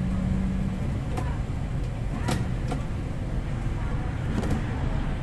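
MAN Lions City city bus driving slowly on a wet road, heard from the driver's cab: a steady low engine and drivetrain rumble with tyre noise. A few sharp clicks or rattles come through it.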